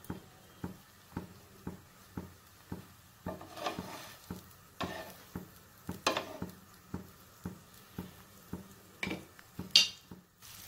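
Wooden spatula pressing pav buns on a hot tawa: soft knocks about twice a second, with a few louder scrapes and light sizzling of the butter.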